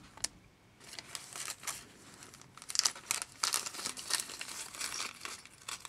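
Small clear plastic bag of metal jump rings crinkling as fingers handle it: irregular crackles that start about a second in and come and go.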